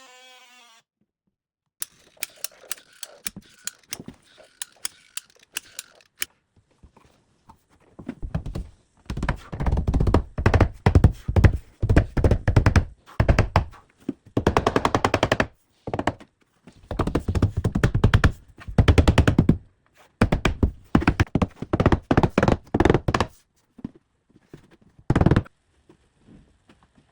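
Door casing being nailed in place: a few separate sharp clicks in the first seconds, then, from about eight seconds in, runs of rapid, loud impacts in groups of one to two seconds, with one last short burst near the end.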